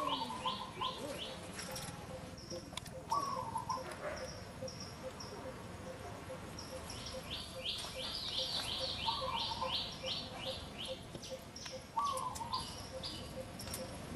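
Wild birds calling: bursts of quick high chirps at the start, again past the halfway mark and near the end, with a few short lower whistled notes between them.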